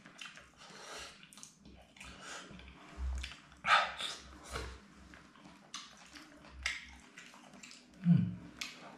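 Eating noises from a man eating stew with chopsticks from a metal pot: chewing and slurping, with light clicks of the chopsticks against the pot. The loudest slurp comes a little under four seconds in, and a short low falling sound comes near the end.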